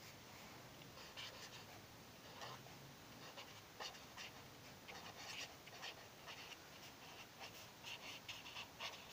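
Faint scratching of a marker pen writing by hand on paper, in short irregular strokes.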